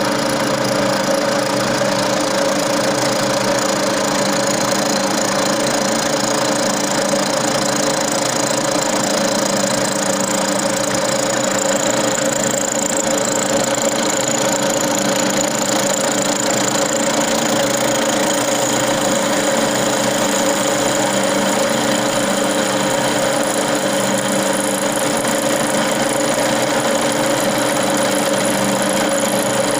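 Milling machine running steadily: a constant motor hum with an even whirr over it, holding the same level throughout.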